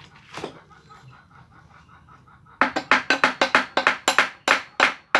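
Rapid, even hammer blows, about four a second, starting about halfway through, on a Daihatsu Gran Max transmission being knocked apart because it is stuck shut.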